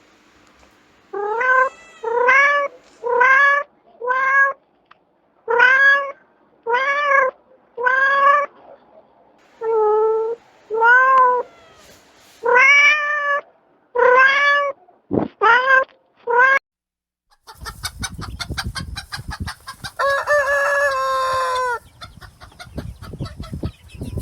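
A domestic cat meowing over and over, a long series of short calls that each rise and fall in pitch. Near the end it gives way to a harsh, rapidly pulsing call from another animal.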